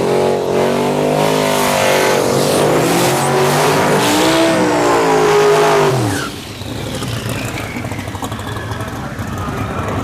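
Race car engine revving hard, its pitch rising and falling, then dropping away sharply about six seconds in, leaving quieter track noise.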